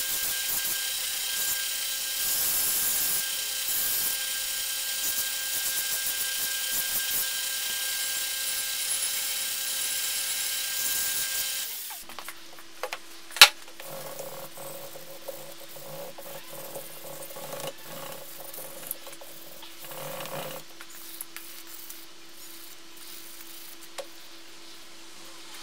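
Belt grinder running as a hickory axe handle is sanded against the belt: a steady hiss over a steady motor tone, cutting off suddenly about twelve seconds in. A quieter steady hum follows, with one sharp click shortly after the cut and faint handling sounds.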